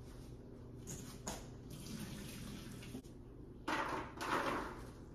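Pasta water and boiled elbow macaroni being poured out of a cooking pot through a strainer, with a couple of light metal clinks about a second in and a louder splashing pour near the end as the noodles tip out of the pot.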